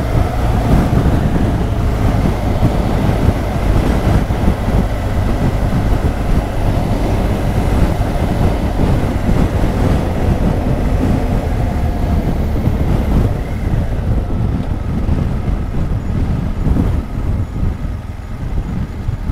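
Riding noise from a 2016 BMW R1200 GS Adventure under way: the boxer-twin engine and a heavy rush of wind and road rumble. It eases off over the last few seconds as the bike slows for traffic ahead.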